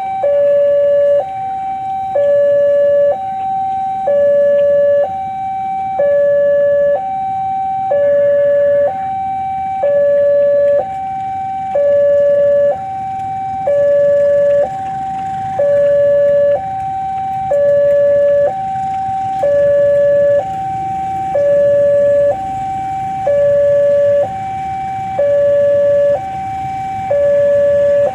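Railway level-crossing warning alarm sounding to close the crossing for a train about to pass. It is a loud two-tone signal that swaps between a higher and a lower tone, each held about a second, repeating steadily.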